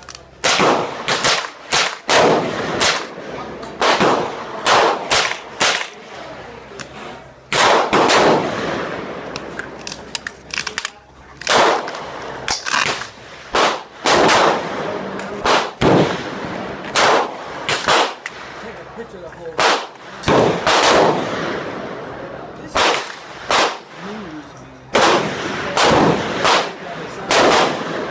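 Gunfire at a shooting range: many sharp gunshots at irregular spacing, some in quick runs, each with a short echoing tail.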